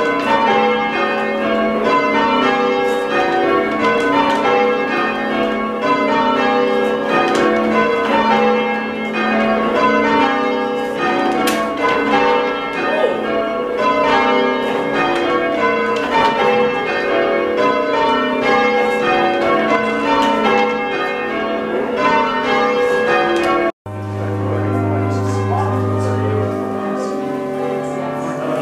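Five English church bells, the tenor 11-1-4 in G#, rung full circle in changes on ropes: a quick, unbroken sequence of bell strokes, each note ringing on. It cuts off suddenly near the end, and steady held musical notes with a low bass follow.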